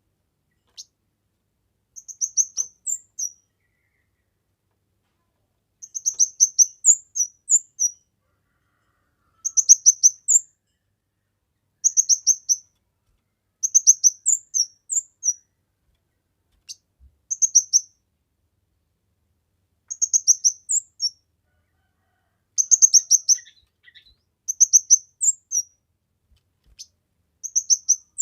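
Kemade bird singing: short phrases of rapid, very high-pitched chirping notes, each about a second long, repeated every two seconds or so with brief silent pauses between them.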